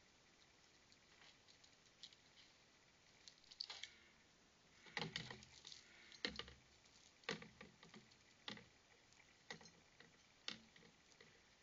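Scattered scratching and sharp knocks, the loudest coming about once a second from about five seconds in, as a raccoon climbs a tree trunk and sets a hanging bird feeder swinging.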